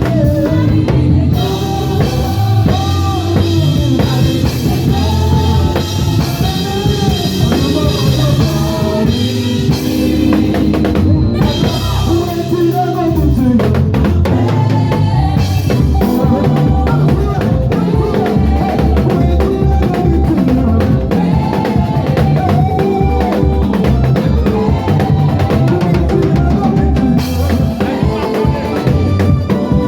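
Gospel praise and worship band playing a medley: a drum kit keeping a steady beat under a heavy bass line, with voices singing over it.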